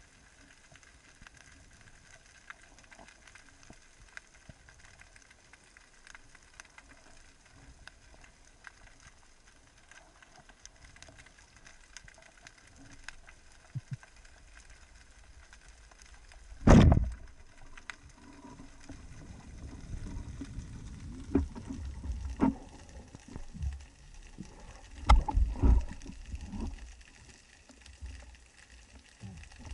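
Underwater ambience with faint crackling ticks. About seventeen seconds in, a speargun fires with a single sharp, loud crack. After that come irregular low thumps and rumbling water noise from the speared fish and the diver rising to the surface.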